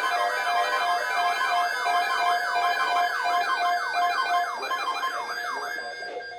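Broadcast emergency alert tone: rapid siren-like up-and-down sweeps over steady pulsing tones. The sweeps fade out near the end while the steady tones carry on.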